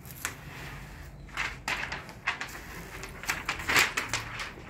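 Paper release liner being peeled off adhesive tape by hand and crinkling, in a series of irregular scratchy rustles that are loudest a little before the end.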